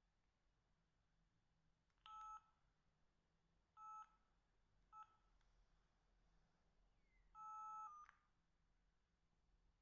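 Samsung SH-710 mobile phone keypad tones: four faint key-press beeps, each the same two-note dial tone, the fourth held about half a second and followed by a soft click.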